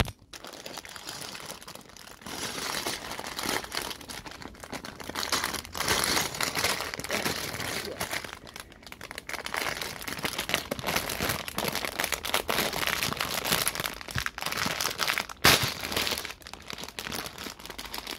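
Clear plastic bag of Lego pieces crinkling as it is handled, with small clicks and rattles of the plastic bricks inside. There is one sharper, louder crackle near the end.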